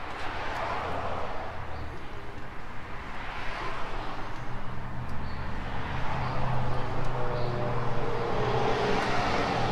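A steady low mechanical hum under a rushing noise that swells and fades several times.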